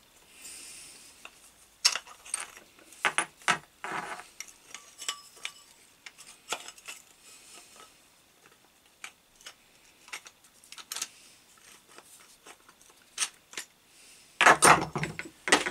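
Metal parts being handled on a workbench: scattered light clinks and taps as the removed motor end cover is turned over in the hands, then a louder clatter near the end as metal is set down on the bench.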